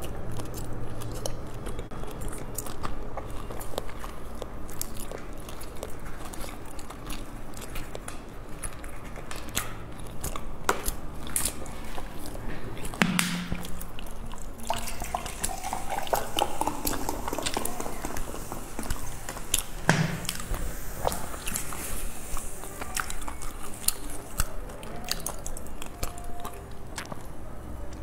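Close-up chewing of a sticky green rice ball (qingtuan) filled with salted egg yolk and pork floss: soft, wet mouth clicks and smacks throughout, with a couple of louder knocks midway.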